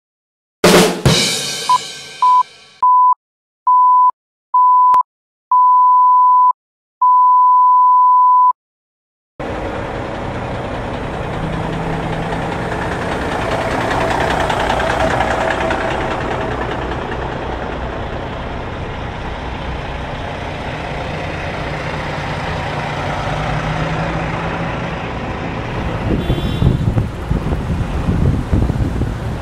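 A loud hit that rings out, then a run of electronic beeps at one pitch, each longer than the last. After a short gap comes steady rumbling semi-truck noise: engines running and tyres on pavement.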